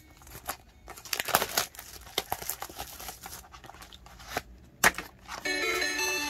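Plastic or foil card packaging being torn and crinkled in the hands: irregular crackling with a few sharp clicks. Background music comes in near the end.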